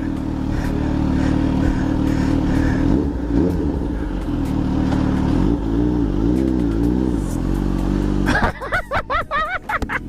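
Kawasaki Z H2's supercharged inline-four running through an SC-Project aftermarket exhaust, a steady exhaust note whose pitch wavers a little in the middle. Near the end it gives way to a different sound with quickly bending pitch.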